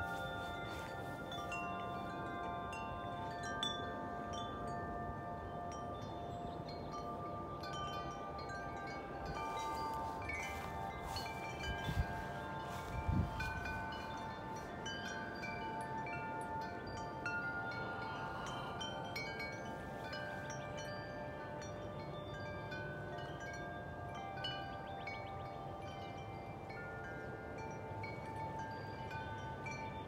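Metal tube wind chimes ringing in the wind, many overlapping tones struck again and again and left to ring on. A couple of short low thumps come about halfway through.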